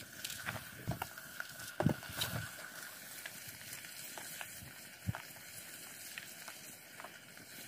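Scattered soft clicks and taps from an onion being peeled and trimmed by hand with a small knife, a few slightly louder, with a small wood fire crackling under a cooking pot.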